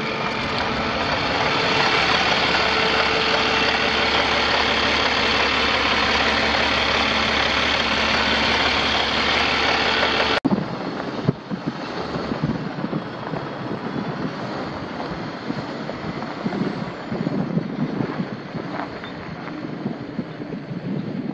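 Cummins ISX15 15-litre six-cylinder diesel idling steadily. About ten seconds in there is an abrupt cut to a quieter stretch of wind buffeting the microphone.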